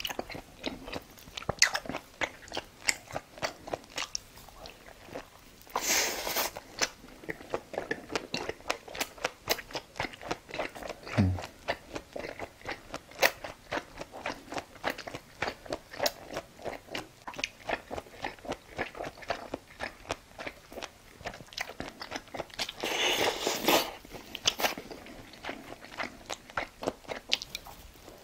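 Close-miked eating: steady chewing with many small crunches and mouth clicks, and two longer noisy bursts, about six seconds in and again later.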